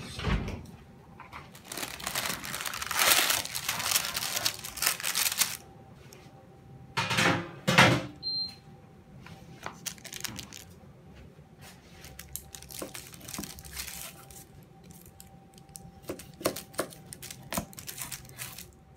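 Baking paper rustling and crinkling as the baked biscotti logs are slid on it from a baking tray onto a wooden board. Two knocks come about seven seconds in, followed by lighter scattered clicks and rustles.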